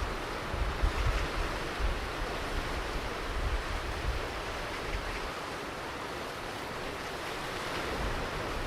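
Ocean surf washing on a beach as a steady wash of noise, with low gusts of wind buffeting the microphone, easing in the middle and picking up again near the end.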